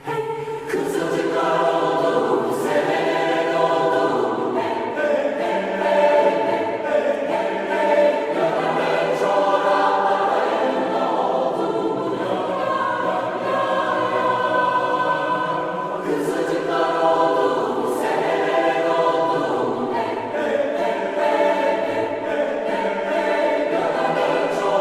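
A choir singing a continuous choral melody, played as a ringtone.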